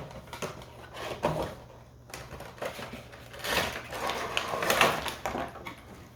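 Scattered light clicks and taps with some rustling, from vinyl toy figures and their packaging being handled and set down on a table, busiest a little after halfway.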